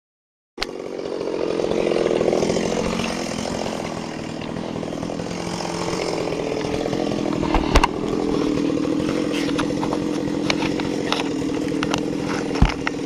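Two-stroke chainsaw engine running steadily, heard close-up from a camera mounted on the saw, starting about half a second in. A couple of sharp knocks come through over it, one midway and one near the end.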